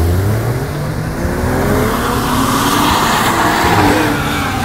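Porsche 911 GT3's flat-six engine running at low revs close by as the car pulls up and stops, its pitch gliding up and down. A rushing noise swells about three seconds in.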